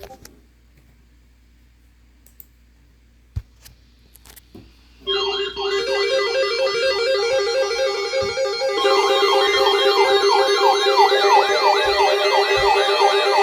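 Electronic emergency alert alarms start abruptly about five seconds in, after a few faint clicks: several tones layered at once, steady pitches under fast, repeating warbling siren-like glides. Another alarm joins a little later and the sound grows louder.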